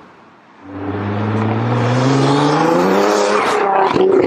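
Nissan GT-R's twin-turbo 3.8-litre V6 pulling away hard from a standstill: the revs climb steadily for about three seconds, then fall at an upshift, with a few sharp exhaust cracks near the end.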